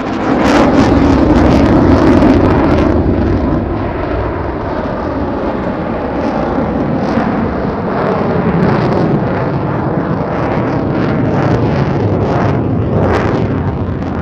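Jet aircraft engine roar, a loud rumbling noise with crackle, heaviest in the first few seconds and then holding steady.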